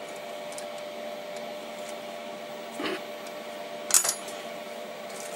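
A sharp metallic clink about four seconds in, with a softer knock a second before, over the steady hum of a CNC lathe. The clink comes from steel tooling being handled during a change to the boring bar on the quick-change tool post.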